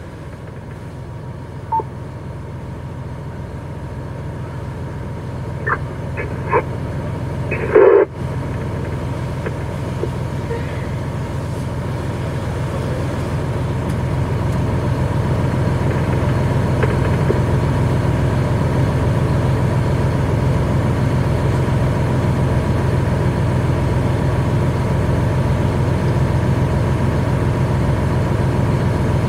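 Fire engine's diesel engine running steadily, a low drone that grows louder over the first half and then holds. A few short sharp sounds come between six and eight seconds in, the loudest at about eight seconds.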